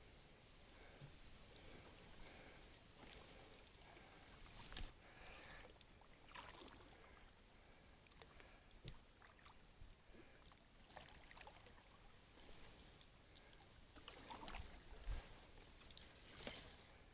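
Faint water trickling with scattered small splashes, clicks and rustles from a small plywood boat being paddled among reeds.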